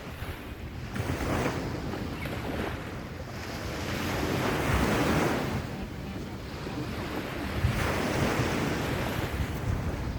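Surf washing onto a beach, swelling and easing in slow surges every few seconds, the biggest about halfway through, with wind rumbling on the microphone.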